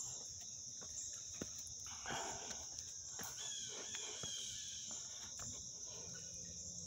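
A steady, high-pitched insect chorus of crickets or similar insects, with scattered faint clicks and a brief rustle about two seconds in.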